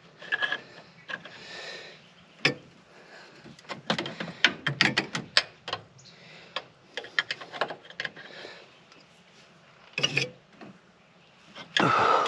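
Hand tools clicking and knocking against metal engine parts during an air compressor swap, in irregular clusters of sharp clinks, densest about four to five seconds in. A louder, rougher noise comes near the end.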